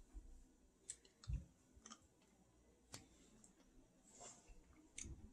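Near silence with a handful of faint, scattered clicks from a Hi-Chew candy's paper wrapper being picked open.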